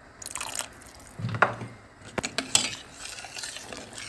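A spoon stirring soup in a pot, clinking and scraping against the pot's sides in a handful of irregular strokes, as cornflour slurry is stirred in to thicken it.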